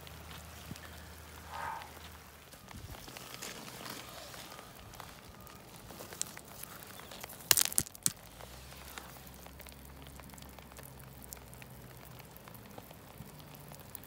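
Stones clacking sharply together a few times about halfway through, as a rock is picked up out of wet river gravel, over a steady hiss.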